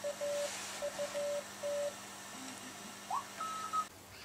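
Morse code tone from a radio receiver: a steady tone keyed on and off in dots and dashes. About three seconds in, a rising whistle settles into a higher steady tone that stops abruptly just before four seconds.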